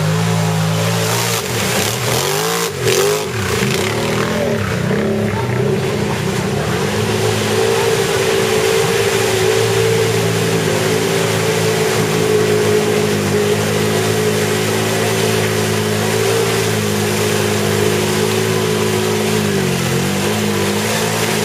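ATV engine held at high revs while driving through deep mud. The revs drop and rise again about two to four seconds in and dip briefly near the end.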